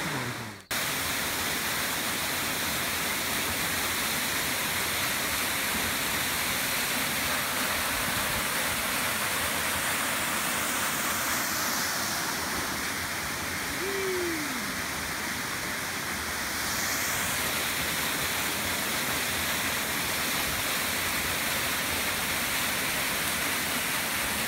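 Small waterfall splashing down onto rocks: a steady rush of falling water. A short falling note is heard about halfway through.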